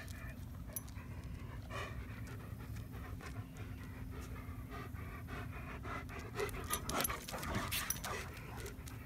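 A dog, here a German Shepherd, panting in a steady run of quick breaths, louder for a moment about seven seconds in as the dogs come close.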